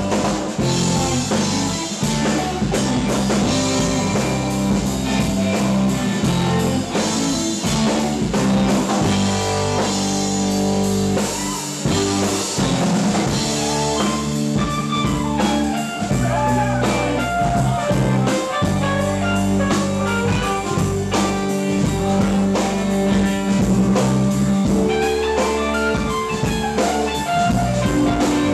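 Live rock band playing, with an electric guitar out front, bending notes over a steady drum-kit beat and sustained bass notes.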